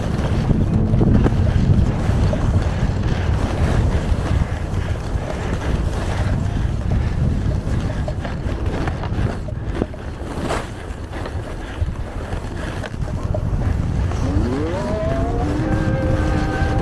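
Wind rushing over the microphone of a skier moving downhill, mixed with skis running on the snow. About three seconds before the end, a pitched hum rises and then holds steady.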